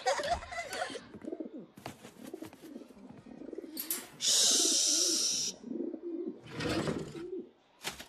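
Turtledove cooing, a run of low soft coos, broken about four seconds in by a long shushing "shh".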